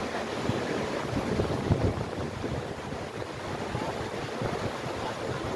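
River rapids rushing and churning around boulders, a steady whitewater noise, with wind gusting on the microphone in low rumbles.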